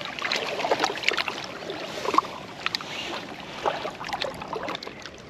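Shallow water splashing and lapping against the rocks, with many small irregular splashes and clicks as a small hooked zander is grabbed by hand and lifted out of the water.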